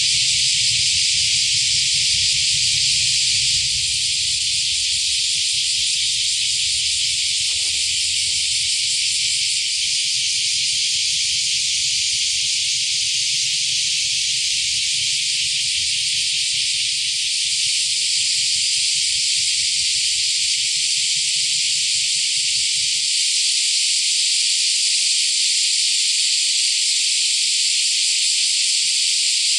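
A dense chorus of cicadas shrilling as one continuous, loud, high hiss. A faint low rumble underneath stops about three quarters of the way through.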